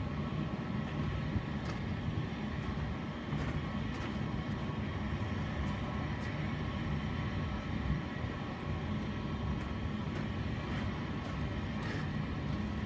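Steady mechanical hum of rooftop HVAC equipment running, with a few faint clicks of handling.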